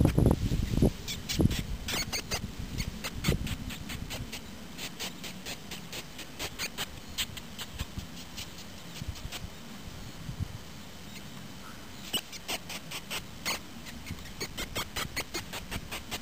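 A shrew squeaking: short, sharp, high-pitched squeaks in quick irregular runs of several a second, with a low rumble in the first few seconds.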